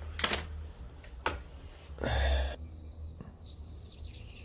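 Toilet running without stopping: water hissing faintly through a fill valve that does not shut off. A few knocks and a short scrape come in the first couple of seconds.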